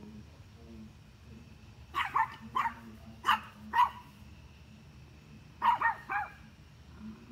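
A small dog barking at a deer in two bursts: about five barks starting two seconds in, then three more a couple of seconds later.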